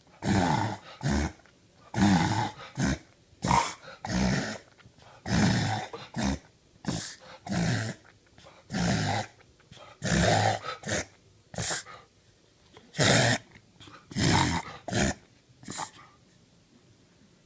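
A dog making a long run of harsh, noisy gasps through the nose, one to two a second in clusters, stopping about 16 seconds in: a fit the owner suspects is reverse sneezing.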